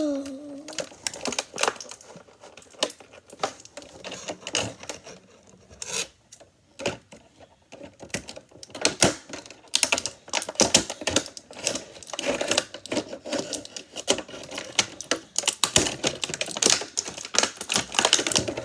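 Hard plastic toy packaging and small plastic parts clicking and crackling in irregular rapid bursts as toy weapons are worked free from the box.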